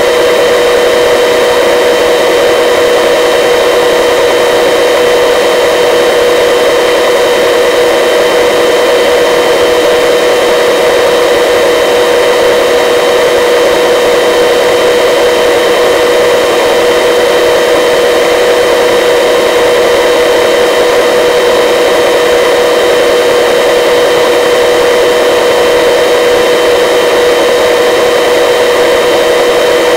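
Helicopter in flight: a loud, steady drone of turbine engine and rotors, with several high whining tones that hold constant pitch.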